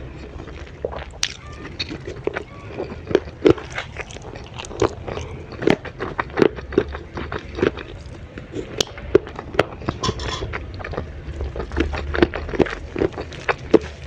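Close-miked eating of grilled chicken with raw vegetables: crisp crunching bites and chewing, several sharp crunches a second.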